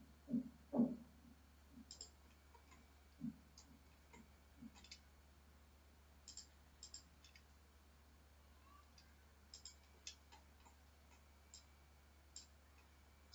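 Faint computer mouse clicks and keyboard key presses, single clicks every second or so, over a steady low hum, with a few soft low thumps in the first second.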